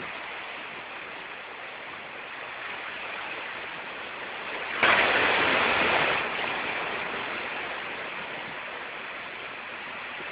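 Storm wind and rain: a steady rushing noise that swells louder about five seconds in for a second or so, then eases back.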